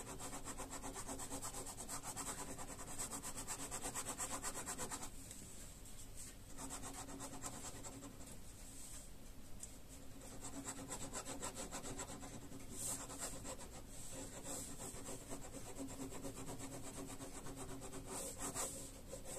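Pen scratching across paper in rapid back-and-forth strokes while cross-hatching a shaded area, pausing briefly now and then.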